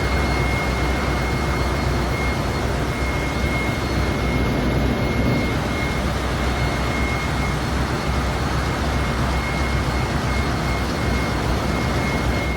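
Ship's machinery running steadily: a dense, even roar with a strong low hum and a constant high-pitched whine.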